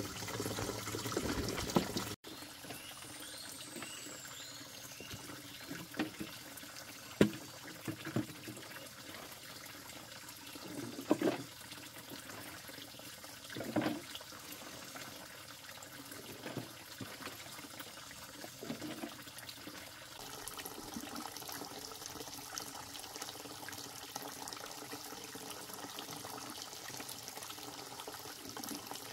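Running water, steady and splashy. It drops suddenly to a quieter level about two seconds in and goes on, with a few short sharp knocks in the middle.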